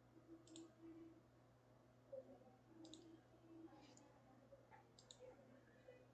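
A few faint computer mouse clicks, some in quick pairs, over a low steady hum.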